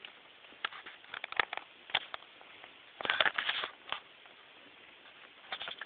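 Packaging and small parts being handled: short rustles and clicks of plastic and cardboard as items are taken out of the box, with a busier stretch about three seconds in.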